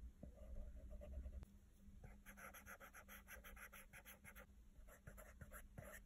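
Faint, quick short strokes of a stylus tip scratching on an iPad Pro's glass screen, about six a second, starting about two seconds in, pausing, then a few more near the end. A low rumble fills the first second and a half.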